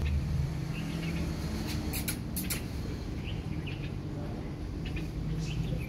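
Small birds chirping outdoors: short, high chirps every second or so, with a few sharper squeaks about two seconds in, over a steady low background rumble.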